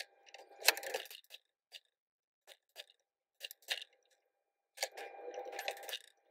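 Ratchet wrench clicking in two quick runs, about a second in and again near the end, as bolts are worked loose on a Yamaha RX100 engine case, with scattered single metallic clicks between.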